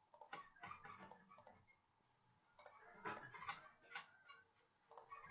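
Faint computer mouse clicks, a dozen or so in three quick clusters.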